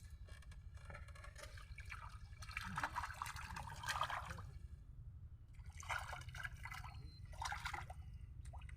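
Water splashing and trickling in two stretches of irregular bursts, over a steady low rumble.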